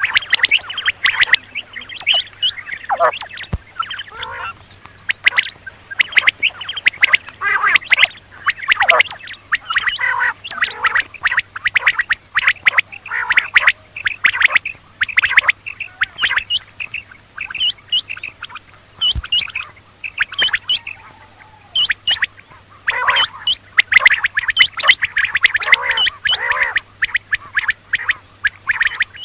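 Quails calling: a dense stream of short, sharp, repeated calls, many overlapping at once, with a couple of brief lulls.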